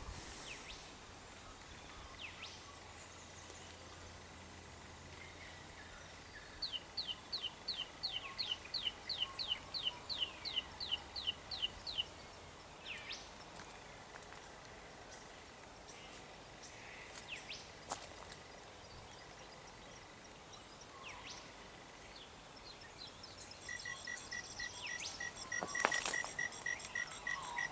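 Low-quality synthetic bird and insect calls played from the solar-powered horn speakers of a sound-art installation, each driven by a cheap digital sound chip. A string of identical falling chirps, about three a second, runs for about five seconds. Near the end comes a fast, buzzing, cricket-like stutter.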